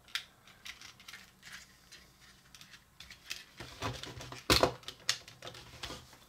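Plastic parts of a Transformers action figure clicking and rattling as they are handled and snapped into place, with a quick run of louder clicks a little past halfway.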